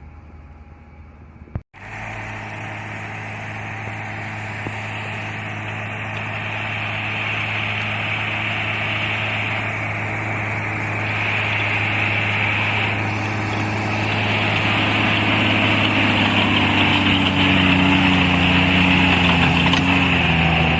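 Case Maxxum 140 tractor engine running steadily under load, driving a Maschio Gaspardo Falco rotary tiller through the soil, with a steady high whine over the drone. The sound starts abruptly after a click about two seconds in, grows louder over the following seconds, and the engine pitch wavers near the end.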